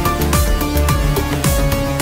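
Electronic background music with a steady beat and deep, pitch-dropping kick drums.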